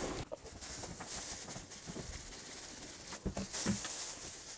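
Water being poured into a thin plastic bag with coins at the bottom, faint and even, with the bag's plastic crinkling in the hands and a couple of soft knocks about three seconds in.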